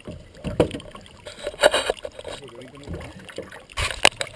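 Water splashing and sloshing against an aluminum boat as a landing net is dipped and lifted out, with a few sharp splashes and knocks, the loudest about four seconds in.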